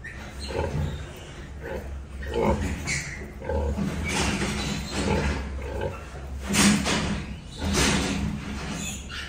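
Newborn piglets and their sow grunting and squealing while the piglets suckle at her teats: short calls about every half second to second, with two louder, sharper squeals in the second half.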